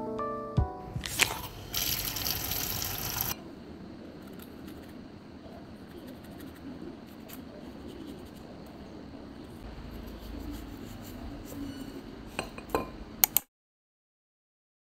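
Knife slicing crisp wax apples over a ceramic plate: faint soft cuts and scrapes, with a few sharp clicks near the end. Piano music fades out at the start, a short burst of hiss comes about two seconds in, and the sound drops to silence for the last second and a half.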